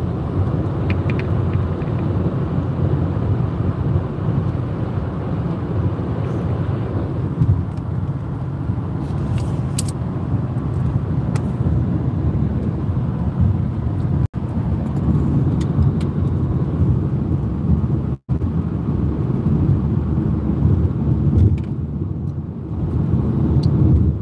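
Car interior noise at highway speed: a steady low rumble of tyres, engine and wind. The sound cuts out for an instant twice, about two-thirds of the way through.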